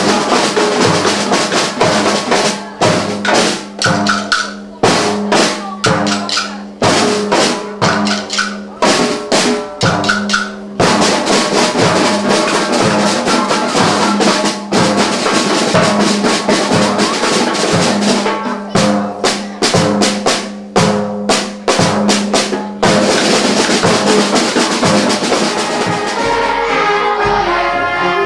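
Children's drum section playing snare drums and bass drums, a loud beating rhythm of sharp strikes that turns into a continuous drum roll about three-quarters of the way through. Near the end, held band chords come in.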